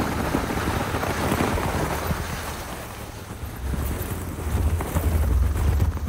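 Lexus ES rolling slowly over packed snow on snow-chained tyres, heard from outside beside the front wheel, with wind rumbling on the microphone. The low rumble grows louder about three and a half seconds in.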